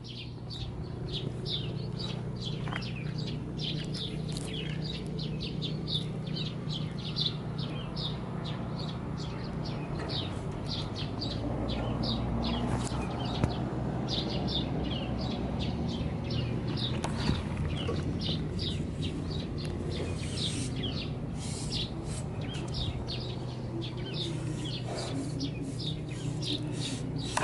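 Honda GB250 Clubman's single-cylinder engine idling steadily through an aftermarket Peyton Place muffler, with birds chirping over it, about two or three chirps a second.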